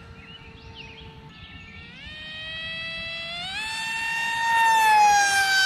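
Electric motor and propeller of a Mini AR Wing RC flying wing whining through a high-speed pass. The pitch climbs in two steps as the throttle opens, the sound grows loudest about five seconds in, and then the pitch sinks slightly as the plane goes by.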